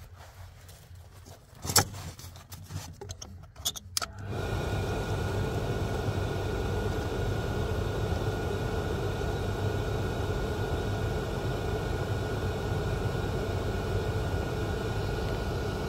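A few clicks and knocks, then about four seconds in an oil boiler burner starts up and runs steadily with a low hum, a rushing noise and a faint high whine: the burner motor restarting while air is bled from the oil line after the tank ran dry.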